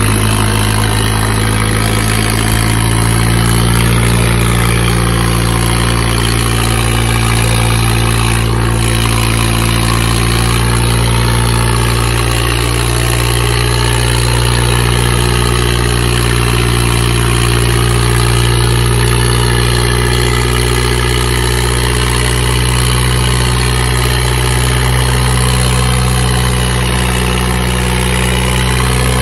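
Diesel tractor engines running flat out and lugging under heavy load as the tractors pull against each other. The result is a loud, steady drone that holds one pitch.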